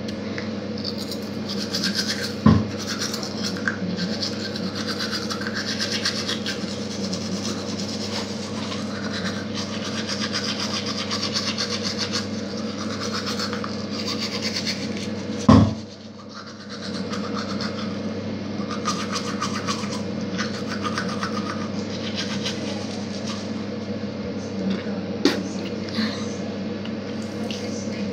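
Toothbrush scrubbing teeth in quick, steady strokes. There are two sharp knocks, one a couple of seconds in and a louder one about halfway through.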